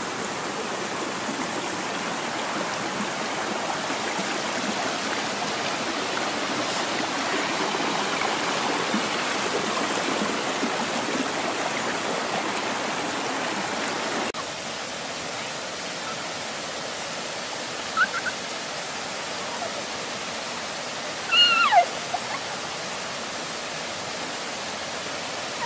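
Steady rushing of a river stream, a step quieter about halfway through. Two short high calls that fall in pitch come near the end, the second the loudest sound.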